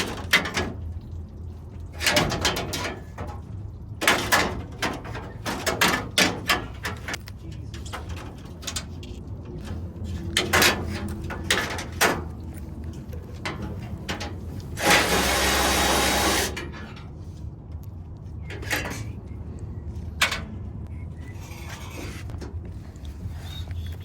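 Scattered knocks and clanks of tools and metal parts as a pickup's front end is taken apart, with one steady noisy burst lasting about a second and a half past the middle, over a low steady hum.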